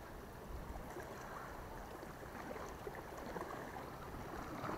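Faint, steady rushing noise of wind and sea water at the shoreline, with no distinct events.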